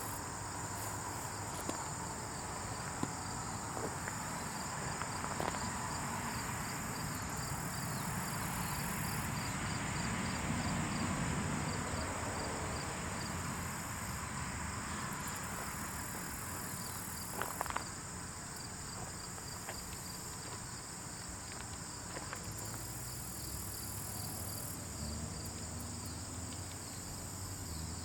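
Steady high-pitched insect chorus with a faint regular pulsing over a low rustling, dotted with small scattered clicks; a brief cluster of clicks about two-thirds of the way through.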